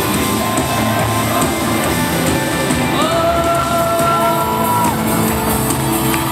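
Live band music with singing, heard from within the audience, with shouts and whoops from the crowd. About halfway through, a voice holds a long note that rises in pitch near its end.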